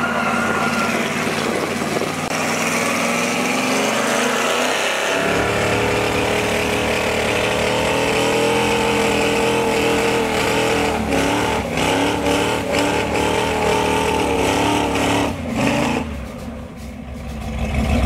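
First-generation Ford SVT Lightning's 5.8-litre V8 revving hard during a burnout, the rear tyres spinning. The revs climb over the first few seconds and are held high for a long stretch, then drop off briefly near the end before picking up again.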